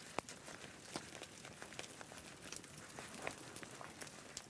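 Stiff bark-tanned hide, dampened with bark solution, being flexed and rubbed by hand to soften it: faint crinkling with scattered small clicks.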